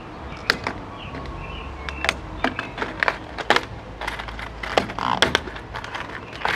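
Hands working a stiff plastic case open: a run of sharp, irregular clicks, snaps and small rattles as the hard plastic is pried and flexed.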